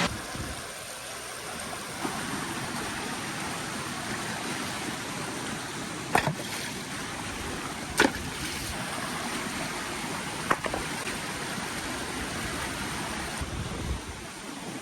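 Steady rush of flowing water from the falls and stream, with a few brief sharp clicks about six, eight and ten and a half seconds in.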